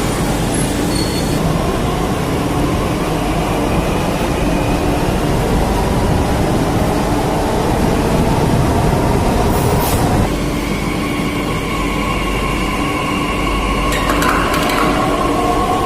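Metro train in motion: a steady rumble of running noise with faint steady tones over it, easing slightly about ten seconds in.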